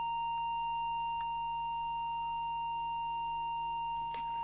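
Audio oscillator's steady, unbroken test tone, fed into the CB radio's microphone input while the deviation preset is trimmed. A couple of faint clicks sound under it.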